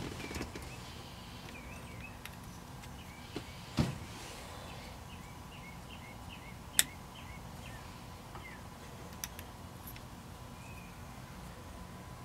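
Hand work on wiring connectors: a knock about 4 seconds in, a sharp click about 7 seconds in and a few lighter ticks, over a steady low hum. Faint chirping runs through the first part.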